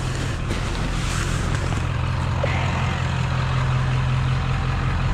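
An engine running steadily at an even pitch.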